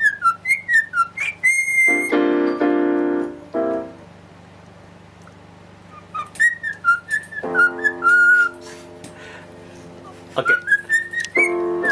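Cockatiel whistling a tune in short quick notes and one held note, alternating with sustained keyboard chords. The whistling and chords pause for about two seconds midway.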